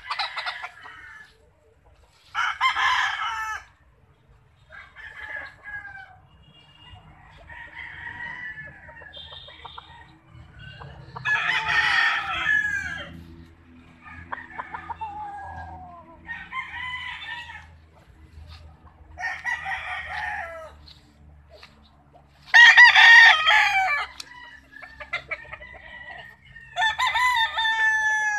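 Several gamefowl roosters crowing one after another, about ten crows of a second or two each. Some are close and loud, others fainter and farther off. The loudest crow comes about three-quarters of the way through.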